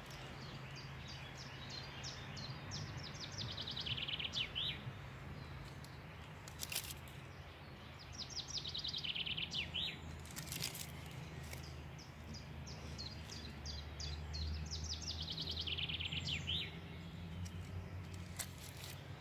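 A songbird singing the same short song three times, each a quick run of notes ending in a flourish, over a steady low hum. A few brief clicks in between.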